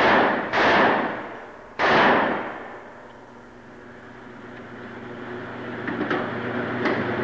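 Two pistol shots, about a second and a half apart, each ringing on in the enclosed range before it dies away, followed by a few faint clicks.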